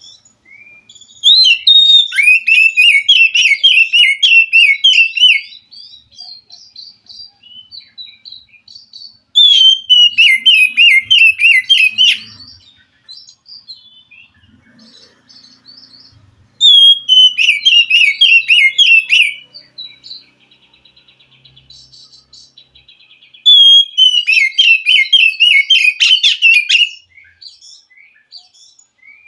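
Oriental magpie-robin singing: four loud bursts of rapid, repeated high notes, each a few seconds long, with quieter scattered twittering between them.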